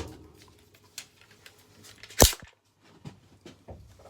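Daniel Defense DDM4V7 AR-15 being handled for a chamber safety check: light metallic clicks from the action, with one sharp loud clack about two seconds in.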